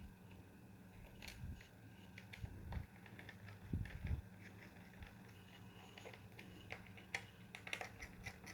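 Scattered faint clicks and taps of laptop parts being handled and fitted during reassembly, with a few soft knocks around the middle and a quick run of clicks near the end, over a steady low hum.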